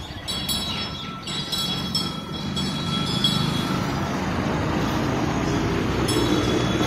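Street traffic: motor vehicles passing close by, their engine and tyre noise building up through the second half. Short, light bell-like chimes repeat during the first few seconds.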